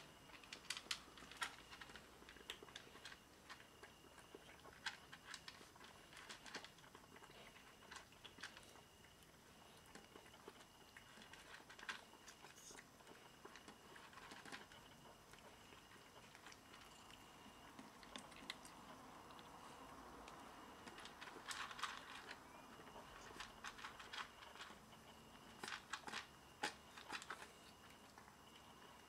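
Cats chewing dry kibble from a plastic tub: faint, irregular crunches and clicks, coming in little clusters.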